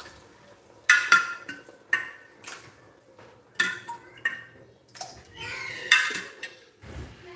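Metal half-cup measuring cup clinking and scraping against a glass jar and the rim of a pot as broth is scooped and poured in, with sharp clinks about once a second.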